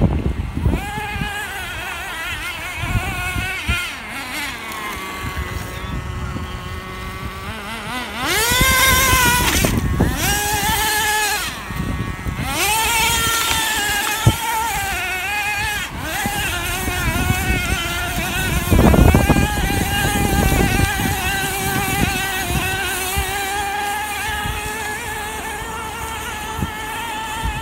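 Nitro RC truck's small two-stroke glow engine running hard as it is driven, a high buzzing note that keeps rising and falling with the throttle, with sharp revs about a third of the way in.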